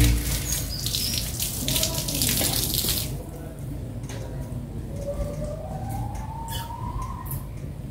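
Garden hose spraying water onto a cat in a wire cage, a steady hiss that cuts off abruptly about three seconds in. Later a thin, faint tone slowly rises in pitch in the background.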